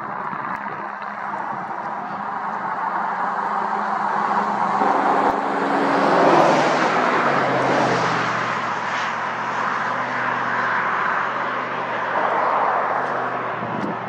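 A motor vehicle passing on the road, its engine and tyre noise swelling to a peak about six seconds in and then dropping in pitch as it moves away. The noise swells again near the end.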